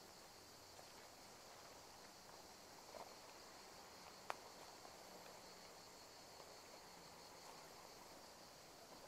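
Near silence: a faint steady high hiss of insects in the trees, with a soft rustle about three seconds in and one sharp click just after four seconds.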